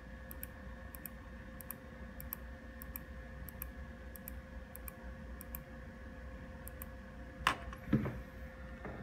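Soft laptop key clicks, one press about every half second, about ten in all, over a faint steady hum. Near the end come two louder knocks.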